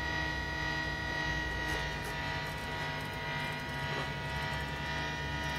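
Steady electronic noise drone from a Zoom G1X guitar multi-effects pedal set up for harsh noise. A low hum sits under several held high tones and a hiss, and the drone shifts slightly about two seconds in.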